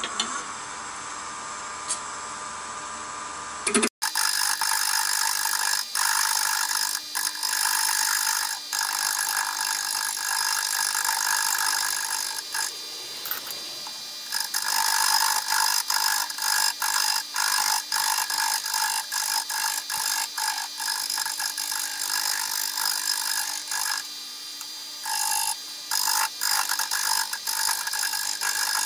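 Wood lathe running while a narrow turning tool cuts into a wooden handle mounted off-centre, giving a loud, shrill scraping that keeps breaking off and resuming. The first few seconds are quieter, with just the lathe running, and end in a sudden cut about four seconds in.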